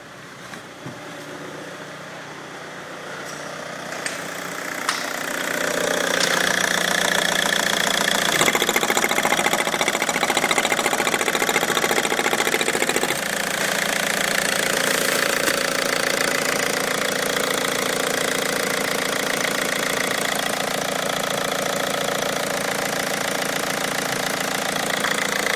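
Opel Y22DTR 2.2-litre four-cylinder turbo-diesel engine idling with a steady diesel clatter. It sounds muffled at first, as from inside the cabin, and grows louder about five seconds in, when it is heard close up in the open engine bay.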